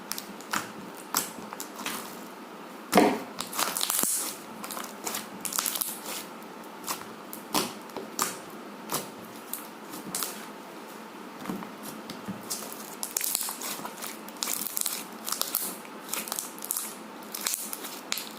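Slime being squeezed and worked, giving irregular crackling clicks and pops, the loudest about three seconds in.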